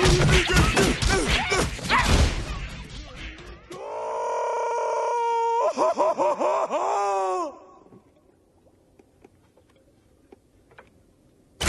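Cartoon brawl: overlapping shouting and thumping blows, fading out over the first few seconds. Then a long, pained groan, held steady, breaking off briefly and ending in a wavering moan, before it goes nearly quiet.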